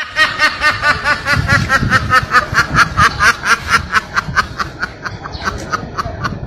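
High-pitched, rapid snickering laugh, a meme laughter sound effect: a quick 'he-he-he' of about five even pulses a second, held throughout and thinning a little toward the end.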